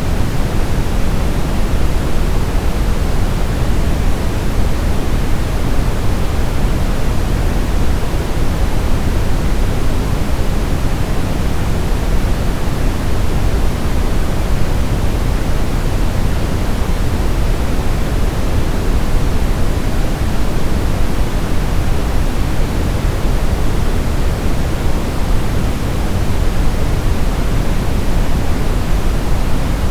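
Steady synthetic noise from a baby-sleep white-noise track, even and unchanging. It is weighted toward the low end, a deeper hiss than flat white noise.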